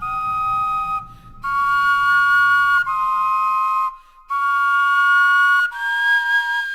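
Vegetable flutes playing a slow melody in two-part harmony, clear whistle-like notes held about a second each, with short breaks about a second in and near the middle. The vegetables have been kept a week in a refrigerator and still sound almost exactly the same as fresh ones.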